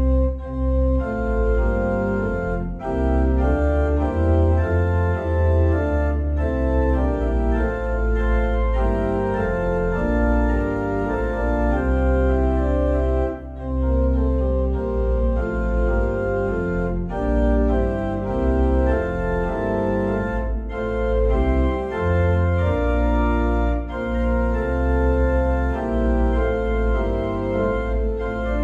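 Organ playing a hymn in full sustained chords, with a deep pedal bass line under the manuals; the chords pause briefly about halfway through at a phrase break.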